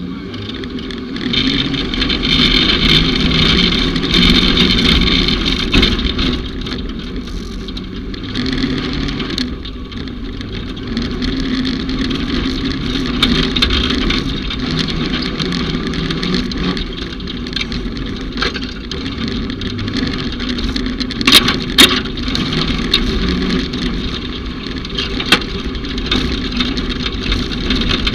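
Off-road racing vehicle's engine running under load, rising and falling in level. Two sharp knocks come a little past two-thirds of the way in, and another follows a few seconds later.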